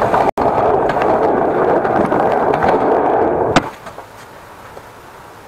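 Small wheels rolling over a tiled floor, a steady rolling noise that stops with a sharp knock about three and a half seconds in, leaving a quiet steady background hum.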